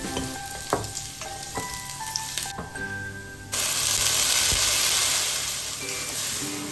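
Shallots and garlic frying quietly in oil in a stainless steel pan, with a few clicks of a wooden spatula against the pan. About halfway through, tomato wedges are dropped into the hot oil and the sizzle suddenly turns loud, then slowly eases. Light music plays underneath.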